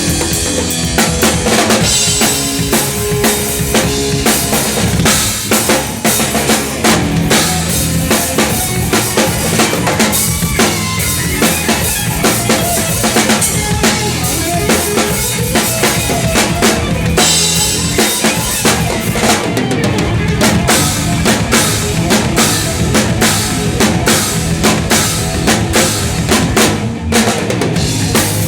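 Live thrash metal band, with the drum kit up front: rapid bass drum and snare hits over the pitched lines of the other instruments.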